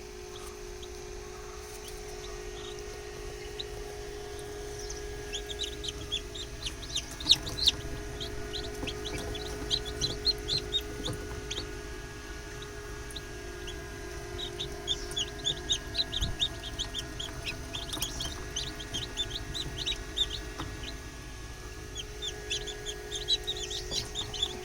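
Young chicks peeping inside an incubator, in rapid runs of short high chirps that come and go in bouts, over a steady hum.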